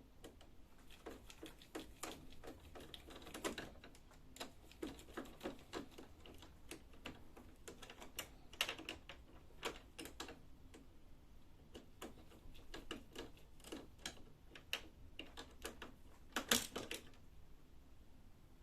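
Irregular light clicks and taps of a screwdriver undoing a screw in a Brother MFC-L5700DN laser printer's plastic cover, with the parts being handled. A few louder clicks stand out, about three and a half seconds in, near nine seconds and near the end.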